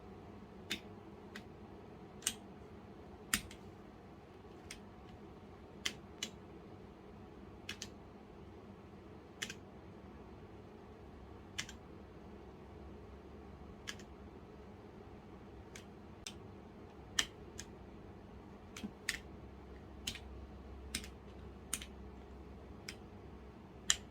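Scattered single key presses on a Womier K66 mechanical keyboard with Gateron Brown switches: sharp clicks about a second apart at an uneven pace, as Fn key combinations cycle the backlight colours.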